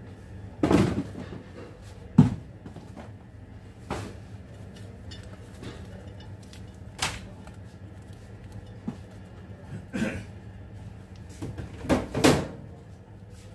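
Scattered short knocks and clicks, about seven in all, the sharpest about two seconds in, from objects being handled and set down. A steady low hum runs underneath.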